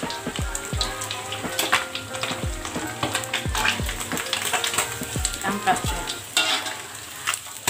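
Whole tilapia deep-frying in hot oil in an aluminium wok, a steady sizzle, with scattered clinks of a metal slotted skimmer and ladle against the wok as the crisp fried fish are lifted out.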